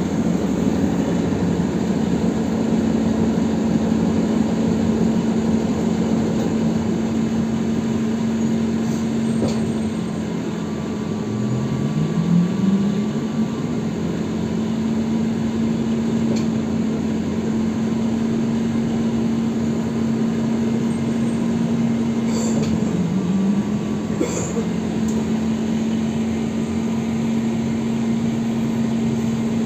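Inside a ZiU-682B trolleybus on the move: road rumble under a steady electric hum, with a tone rising in pitch to meet the hum about eleven seconds in and again briefly near twenty-three seconds.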